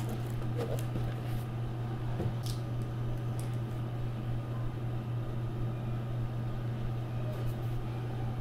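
Steady low mechanical hum, with a few faint clicks and rustles over it.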